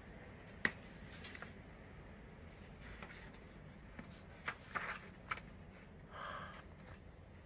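Paper and card being handled: a sharp tap less than a second in, then the pages of a glossy printed booklet being turned, with a few crisp clicks and a short rustle near the end.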